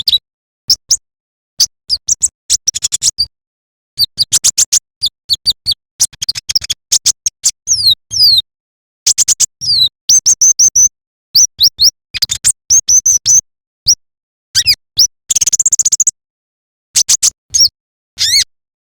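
A konin ('kolibri ninja') sunbird singing: quick bursts of high, sharp chirps and twittering notes, some sweeping down or wavering, broken by short silent gaps.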